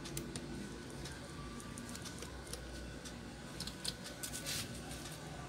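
Faint clicks and scratches of a small screwdriver working at the screws and metal bracket of a netbook LCD panel, with a short scrape about four and a half seconds in.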